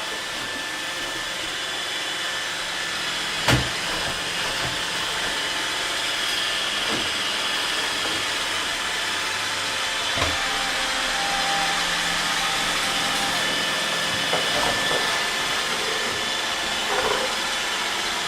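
iRobot Roomba 880 robot vacuum running: a steady whir from its vacuum motor and brushes, with a high whine on top. There are two short knocks, a few seconds in and again about ten seconds in.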